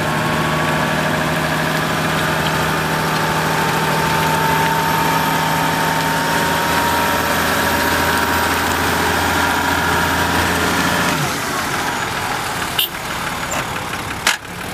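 Toyota Land Cruiser engine running steadily at low revs, with a steady higher whine over it. The sound drops away about eleven seconds in, leaving a quieter engine idling, and two sharp clicks come near the end.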